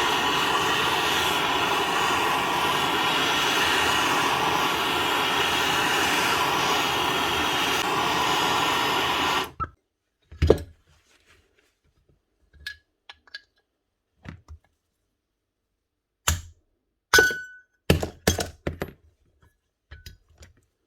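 Gas blowtorch running with a steady hiss for about nine and a half seconds, heating the bearing housing to free a failed motor bearing, then cutting off suddenly. After it come several sharp metal knocks and clicks as the bearing is tapped out.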